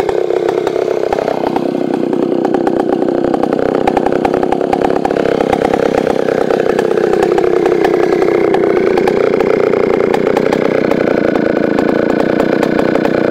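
Solo 642 vintage two-stroke chainsaw running under load, cutting wood; its engine note sags and picks back up a couple of times as the chain bites.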